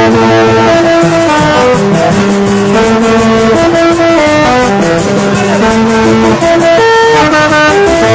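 Music: a melody of held notes over a steady percussion beat, which comes in about a second in.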